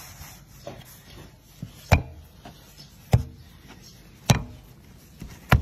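Four sharp knocks, a little over a second apart, on a plastic cutting board while a log of risen bread dough is rolled and divided into portions.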